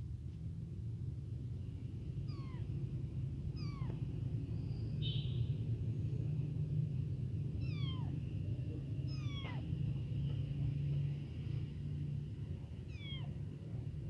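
Very young kitten mewing in short, high cries that fall in pitch, about five of them a few seconds apart: an abandoned kitten crying for its mother, hungry. A steady low rumble runs underneath.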